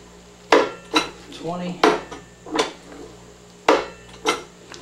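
JD Squared Model 32 manual tube bender being worked stroke by stroke to bend 1.5-inch steel tubing: six sharp metal clanks, roughly in pairs, from the lever, pin and catch. A man's voice calls out the bend angle once in the middle.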